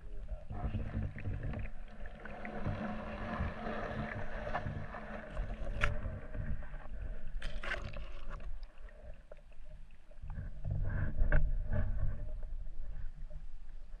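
Muffled underwater noise picked up by a submerged camera: a low steady hum with a few sharp clicks and knocks, the loudest about three-quarters of the way through.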